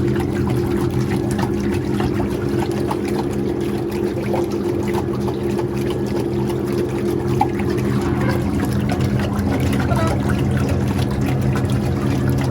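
Water churning in a dog swimming pool, with the steady hum of the pool's wave/current pump motor running. It cuts off suddenly near the end.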